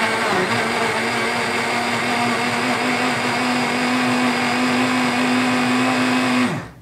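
Bosch VitaStyle Mixx2Go personal blender running at a steady pitch as it purées lemon juice, onion and pineapple, then winding down and stopping near the end.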